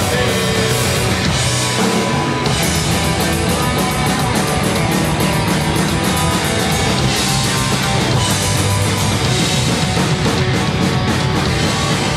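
Live rock band playing: two electric guitars, bass guitar and drum kit together at a steady, loud level.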